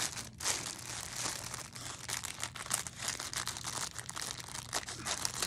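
Thin plastic packaging being handled and pulled open, rustling with many quick crackles.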